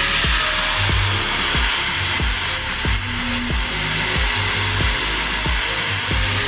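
Background music with a heavy bass beat, deep thumps about twice a second, over a steady loud hiss.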